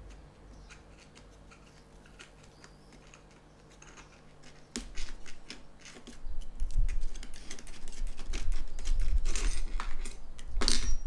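A cat pawing at a loose jigsaw blade and dragging it across a wooden workbench: a run of small clicks and scrapes, sparse at first and denser and louder from about halfway, over low rumbling bumps.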